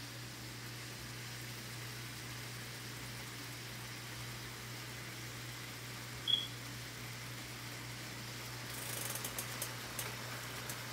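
Pot of mussels simmering in butter sauce: a steady low hum and faint hiss, with a single short high chirp about six seconds in. Light crackling and spattering start at about nine seconds.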